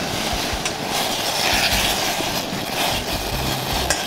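Gas stove burner and a small pot of boiling water giving a loud, steady rushing hiss while chopped wild fern is dropped in and stirred to blanch it.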